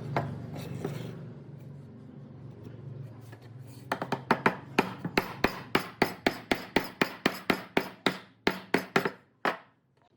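Hammer striking wood in a quick, even series of about twenty blows, roughly four a second. The blows begin about four seconds in and stop suddenly near the end.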